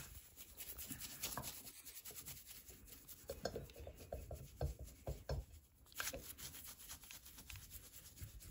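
A brush rubbing loose imitation gold leaf off a gilded bird figurine: a run of faint, quick brushing strokes. This is the brushing-off of excess leaf after the first stage of gilding.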